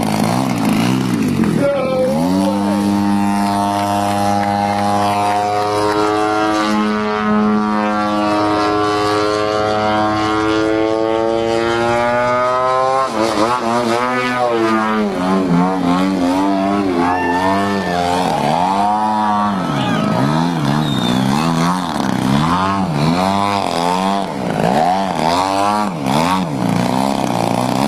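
Gasoline-powered RC model airplane engine running at high revs: a steady drone for several seconds, then the pitch rising and falling over and over as the throttle and flight path change.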